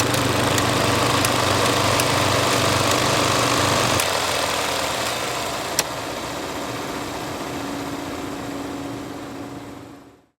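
Old film reel noise: a steady hiss and hum with a faint tick about every two-thirds of a second. The low hum drops out about four seconds in, a sharper click comes near six seconds, and the noise fades out near the end.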